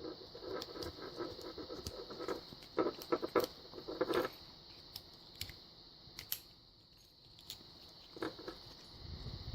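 Small LAI padlock being worked with a thin homemade knife used as a shim, an attempt to bypass the latch. It gives scratchy metallic clicks and rattles in short clusters, busiest in the first four seconds, then only a few scattered clicks.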